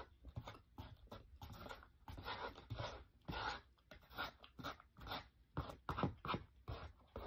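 Close-up chewing with the mouth closed, mixed with a metal spoon and fork scraping and tapping the inside of a styrofoam takeout box, in irregular short strokes.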